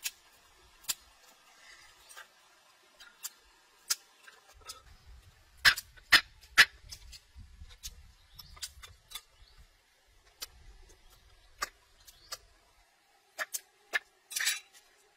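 Scattered sharp clicks and knocks as a raw plucked duck is handled and cut on a wooden board. The loudest are three in quick succession about six seconds in, with a low rumble underneath through the middle.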